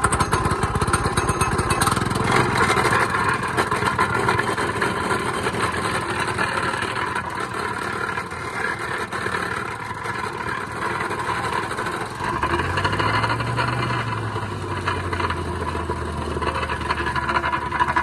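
Honda petrol engine of a wacker plate (vibrating plate compactor) running fast, the plate pounding and vibrating over gravel. The engine note shifts lower and steadier about twelve seconds in.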